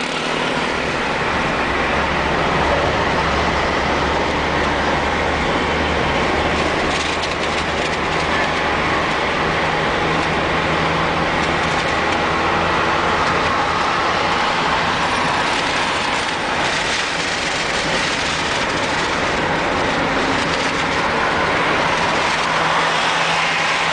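Steady engine hum and tyre and road noise heard from inside a moving car's cabin.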